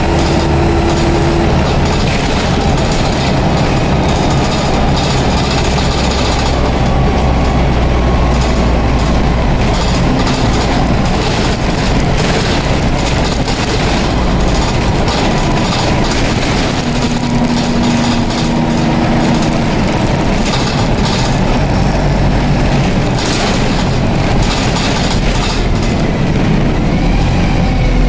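Dennis Dart single-deck bus with a Cummins diesel engine and Allison automatic gearbox, running, heard from inside the passenger saloon as a deep, steady rumble.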